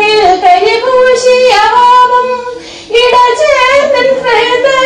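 A woman singing a Malayalam poem unaccompanied, holding long, wavering notes. She pauses briefly about two and a half seconds in, then sings on.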